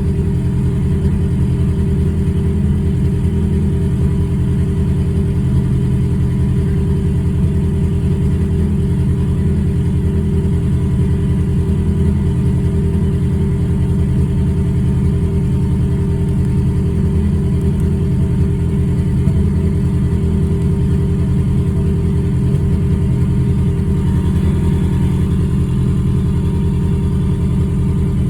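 Ford Focus engine running steadily at a constant speed, with a misfire that the tuner logs on cylinder 3.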